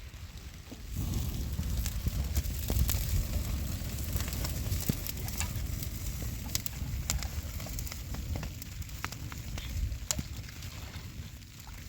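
A fire crackling, with sharp pops scattered throughout and a low rumble that swells about a second in.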